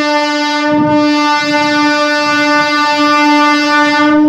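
Horn of an Indian Railways multiple-unit passenger train sounding one long, steady blast on a single note.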